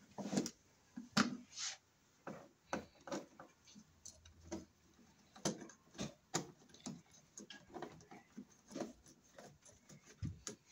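Screwdriver turning the metal screws of a wall switch: a string of small, irregularly spaced clicks and ticks of metal on metal.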